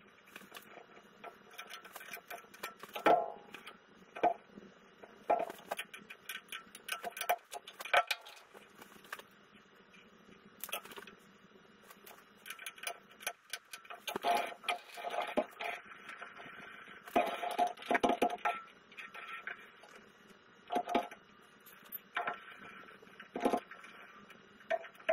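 Irregular clicks and light metallic knocks from hand adjustments on a metal lathe while it is set up for a taper cut, over a faint steady hum.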